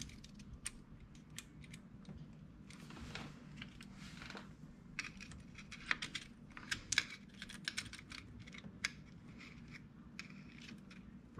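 Faint, irregular light metallic clicks and scrapes from fingers and a screwdriver working at a washer on the centre of a 125cc ATV's clutch hub, trying to work it loose. The clicks come thicker in the middle of the stretch.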